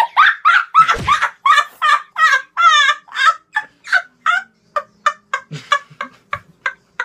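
A person laughing hard in high-pitched squeals: a fast run of short repeated cries, each dropping in pitch, that grow shorter and sparser toward the end.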